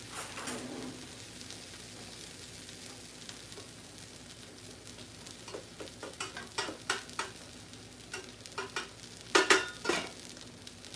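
A steady sizzling hiss from the cooking, then a run of clinks and knocks at a rice cooker, loudest near the end as its lid is handled and set back on.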